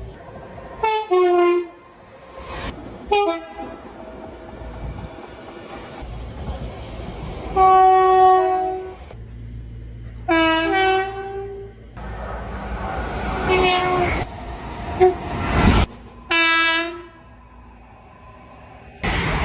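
A series of train air-horn blasts from different recordings cut one after another: short toots and longer held blasts, each a chord of several notes, with the rumble of passing trains between them. The recordings change abruptly at each cut.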